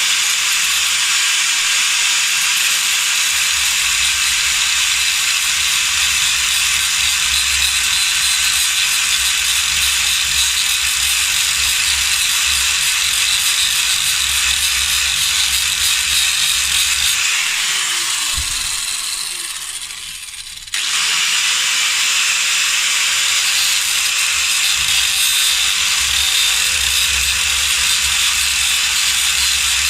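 Angle grinder with a grinding disc grinding a groove into a steel winch clutch lever. The grinding is steady; about 18 seconds in the motor is let off and winds down with a falling whine, then it starts up again about 21 seconds in and goes on grinding.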